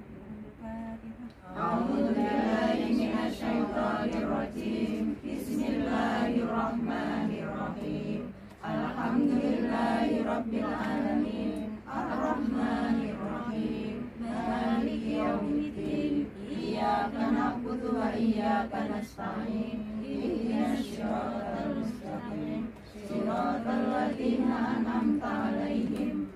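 A group of women chanting Islamic devotional verses together in unison, in phrases of a few seconds with short pauses between them.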